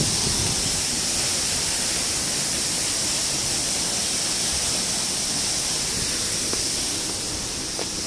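Waterfall: a steady rush of falling water splashing onto rocks, a little quieter near the end.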